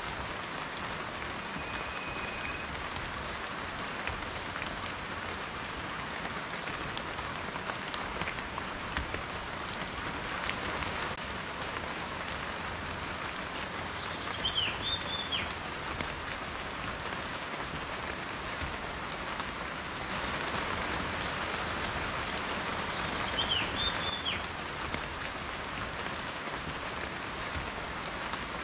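Steady rain falling, with individual raindrops tapping on a surface. Two short high chirps cut through it, about halfway through and again near the end.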